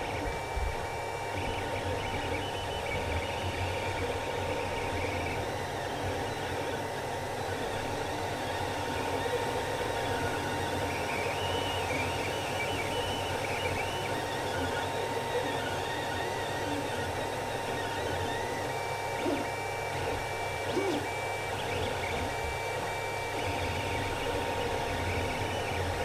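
Creality CR-10 3D printer printing: its stepper motors whine in shifting tones that come and go as the print head and bed move, over a steady hum.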